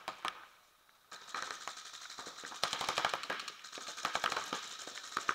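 Paintball markers firing in rapid strings of sharp pops, many shots a second, starting about a second in and keeping up.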